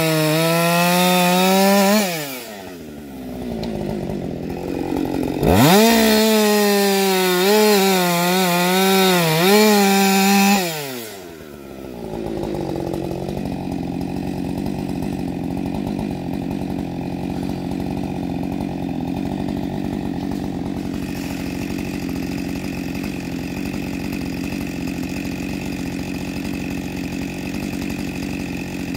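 Husqvarna 560XP two-stroke chainsaw running a ripping chain: screaming at full throttle with the pitch dipping and recovering as under cutting load, let off about 2 seconds in, revved hard again for about five seconds, then dropped back to a steady idle for the rest.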